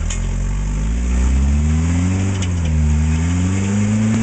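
Toyota rock crawler's engine running under load as the truck climbs a rock ledge, its revs rising and falling in slow swells as the throttle is worked.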